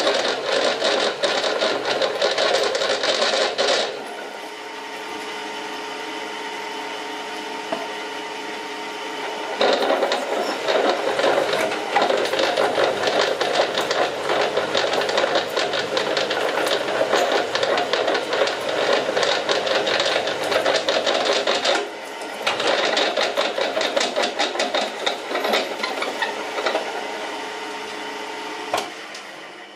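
Pillar drill with a 22 mm bit cutting into a metal workpiece: a loud, dense, chattering cut in long stretches, twice easing off to only the drill motor's steady hum when the feed is let up, and again just before the end.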